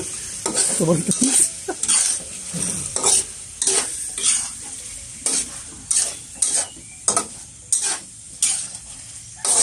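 Chicken adobo sizzling in a pan while a utensil stirs it, scraping the pan in regular strokes about one and a half to two times a second.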